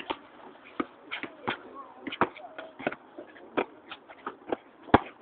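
Basketballs bouncing on a hard outdoor court: a string of irregular sharp thuds about two a second, the loudest just before the end, with faint voices behind.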